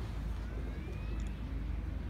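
Steady, fluctuating low rumble of outdoor background noise, with a faint thin rising tone about half a second in.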